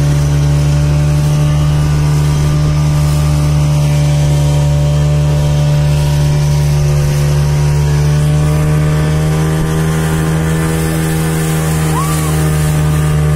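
Speedboat motor running at a steady cruising speed, a loud constant hum, with water rushing past the hull; its pitch sags slightly in the second half.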